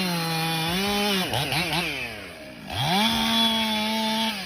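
Two-stroke chainsaw running at high revs. Its revs sag and waver about a third of the way in, then climb back to full speed.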